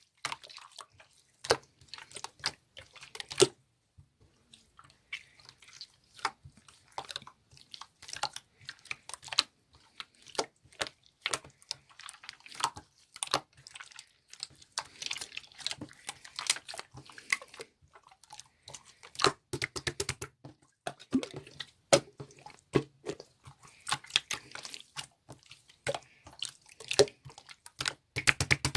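Clear slime being squished, pressed and pulled by hand, making irregular wet clicks, crackles and small pops.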